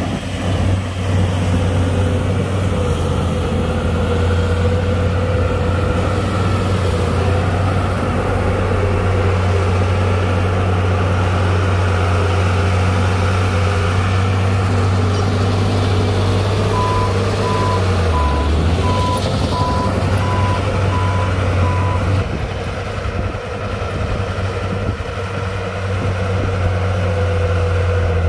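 Heavy diesel engine of an earthmoving machine running steadily. About two-thirds of the way in, a reversing alarm beeps about eight times, roughly one and a half beeps a second, and the engine note dips briefly as it starts.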